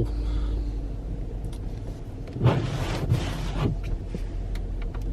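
Inside the cabin of a Dodge Durango R/T, its 5.7-litre HEMI V8 running low and steady as the SUV pulls away from a dead stop on snow with light throttle, the tyres gripping without slipping. About two and a half seconds in, a rushing hiss lasts just over a second.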